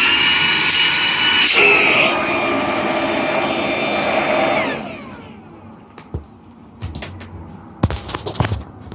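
Shark DuoClean cordless stick vacuum running steadily, then switched off a little over four seconds in, its motor whine falling in pitch as it spins down. A few sharp clicks and knocks of handling follow.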